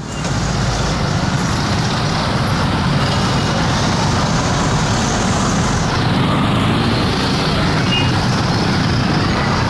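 Many small motorcycle engines running together at low speed in a dense jam, making a steady, even din of engine noise.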